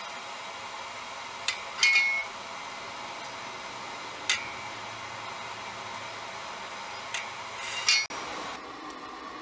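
Stacked steel damascus billet, tack-welded to a rebar handle, set down and shifted on a steel anvil: a few sharp metal clinks. The loudest, around two seconds in, rings briefly, and another comes near eight seconds. A steady background hum runs under them.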